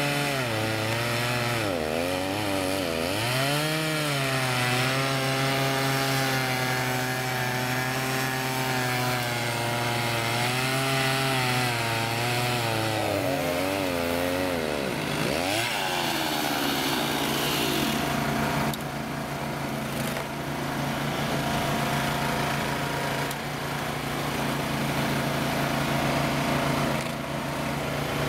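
Chainsaws cutting through large firewood log rounds, the engine pitch dipping and recovering again and again as the chain loads up in the wood. From about sixteen seconds in, a small engine runs at a steadier speed.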